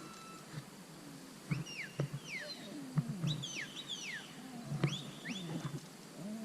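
Sheep bleating, with a run of quick, high, falling whistle-like calls in the middle.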